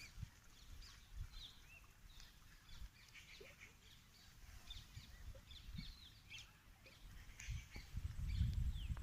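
Many small birds chirping, short calls scattered throughout, over a low rumble that gets louder near the end.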